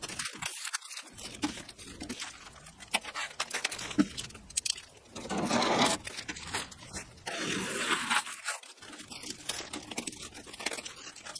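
Thin plastic masking film crinkling and rustling as it is handled and sliced with a utility knife, louder in stretches around the middle and about two-thirds through.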